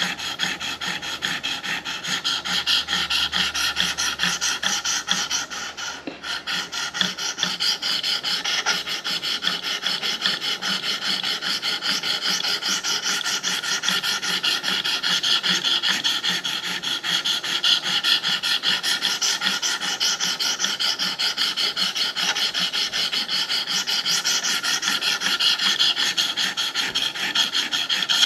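300-grit stone of a KME guided-rod knife sharpener stroked rapidly back and forth along a steel knife edge: a steady scraping rasp, with a brief break about six seconds in. It is the coarse stone grinding the bevel to push the burr over to the other side of the edge.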